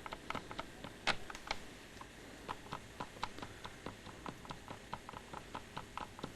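Even, rapid clicking, about four clicks a second, from a newly installed furnace's igniter, sparking as the burner tries to light after the heat is switched on.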